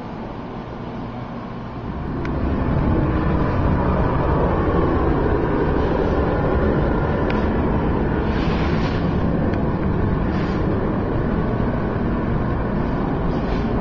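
Loud, steady machine running noise that comes in about two seconds in, with short hissing spurts near the middle and a few sharp clicks.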